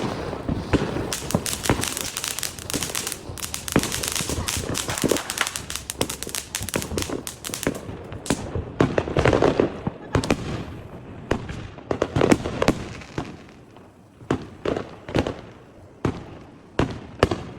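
Fireworks going off: a dense run of rapid crackling pops for the first half, then separate sharp bangs and pops with short gaps between them.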